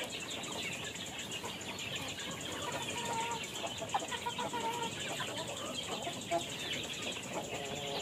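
Brahma chickens feeding at a dish of wet feed, giving soft, scattered clucks with faint pecking clicks.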